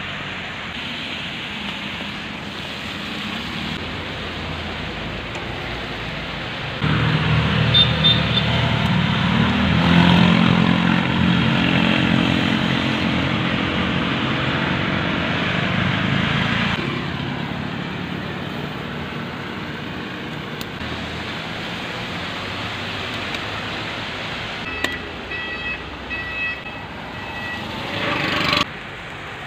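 Rain and road traffic on a wet street: a steady hiss, with a vehicle engine running louder from about seven to seventeen seconds in. A few short high tones sound near the end.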